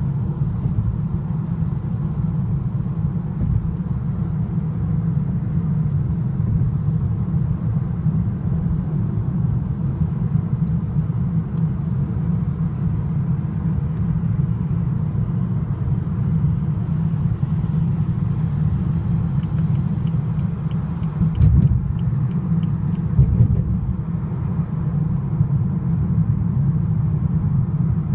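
BMW 328i F30 driving, a steady low rumble of road and engine noise with faint intermittent metallic ticks and rattles, clustered about twenty seconds in. This is the rattle that started within the car's first month, described as metal vibration, which the dealer failed to fix.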